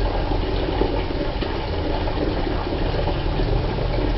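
Water running steadily from a tap just opened to feed an instant electric water heater.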